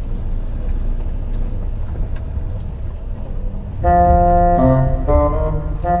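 Low steady rumble of an HGV engine heard from inside the cab as the lorry wades through floodwater, under faint background music. About four seconds in, loud organ-like keyboard music with held chords comes in over it.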